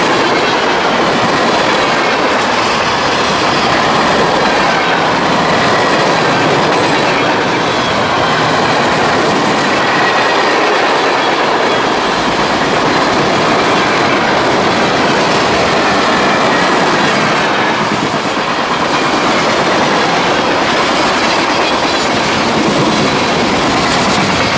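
Freight train cars rolling past close by: a loud, steady rumble and rattle of steel wheels on rail joints.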